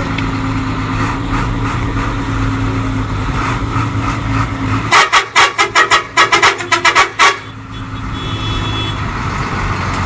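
Hino AK1J bus diesel engine idling steadily. About halfway through, a rapid run of about a dozen short, loud, sharp blasts lasts just over two seconds, then the idle carries on.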